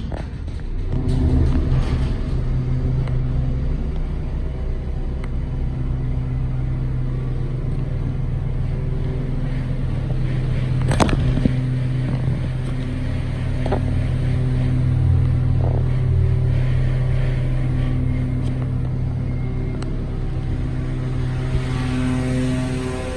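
Hydraulic elevator pump motor running with a steady, low hum that starts about a second in, with one sharp click about eleven seconds in. The elevator is badly low on hydraulic oil, to the owner's ear.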